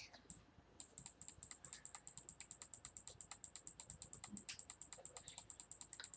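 Faint, rapid, evenly spaced clicking of a computer mouse button, starting about a second in, as the mouse repeatedly clicks an on-screen arrow.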